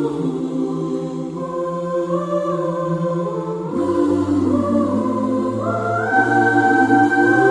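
Music: sustained, wordless choral chords held long, shifting to a new chord about four seconds in and again near six seconds.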